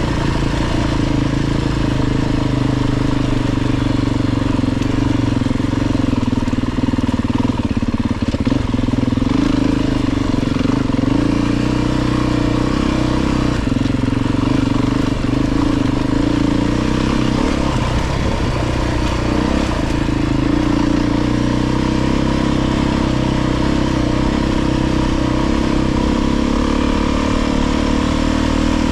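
Beta 350 RR's single-cylinder four-stroke engine running steadily while being ridden, holding a fairly even pitch with small rises and dips as the throttle changes.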